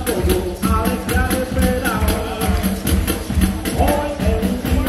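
Live band music with drums keeping a steady, quick beat and a voice singing over it.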